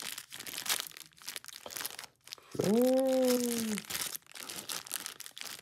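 Packaging rustling and crinkling as parts are rummaged through in a box, with a short hummed 'hmm' lasting about a second in the middle.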